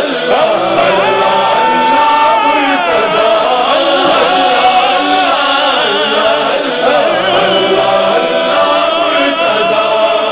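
Devotional manqabat vocal music: male voices in chorus singing long, held, wavering notes.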